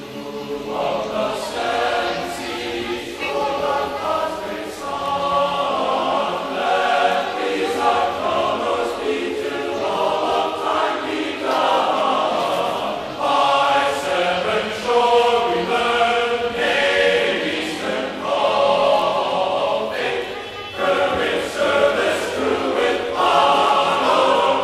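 Background music of a choir singing, several voices holding long sung phrases, with a short pause about twenty seconds in.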